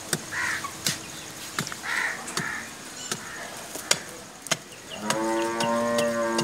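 An iron digging bar knocks into hard soil several times, then about five seconds in a cow or buffalo gives one long, steady moo of about two seconds.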